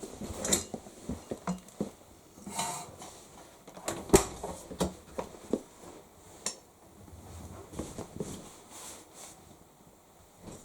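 Shirts being unloaded by hand from a tumble dryer drum: fabric rustling with irregular light clicks and knocks, a sharper knock about four seconds in.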